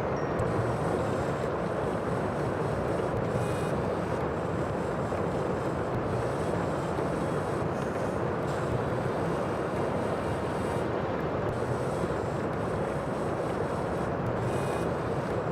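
Steady rushing sound of the sea, surf and wind blended into a continuous wash with no separate breaking waves.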